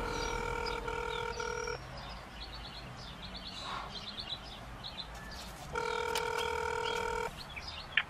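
Telephone ringback tone heard through a phone's speaker: two rings of about two seconds, four seconds apart, as a call goes through. Birds chirp in the gap between the rings.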